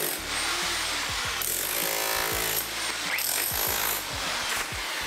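Large DeWalt electric demolition hammer with a chisel bit hammering cement render off a stone wall, running in bursts with brief pauses and the chipped render crumbling away.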